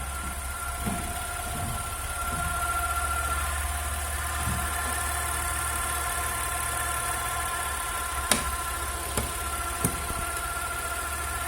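Saab 9-3 2.8T's turbocharged V6 running at idle with a steady high whine of several tones over the engine hum, and three sharp clicks near the end. It is the strange engine noise that the owner cannot identify.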